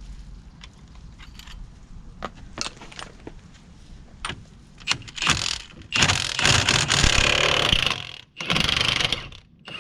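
Light metallic clinks of tools being handled, then three loud bursts from a powerful impact wrench, the longest lasting about two seconds.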